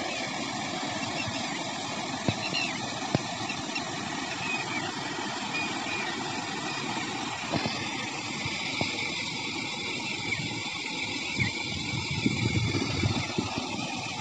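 Water spilling steadily over a small masonry check dam (weir) and splashing into the channel below.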